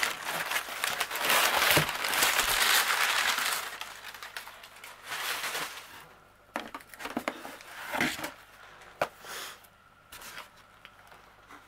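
Brown kraft packing paper crumpling and rustling as it is pulled out of a cardboard box. The rustling is loud for the first three or four seconds, then quieter, with a few light knocks of cardboard as the boxed kit is lifted out.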